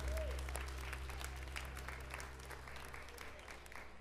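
Audience applauding at the end of a live band's song, while the band's last low note rings out and fades away about three seconds in.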